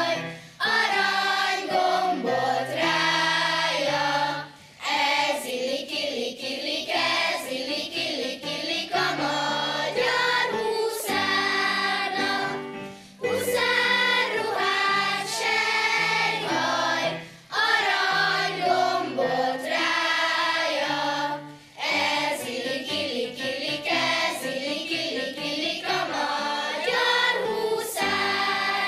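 Children's choir singing a song with an instrumental accompaniment whose low notes step from pitch to pitch, with short breaks between phrases.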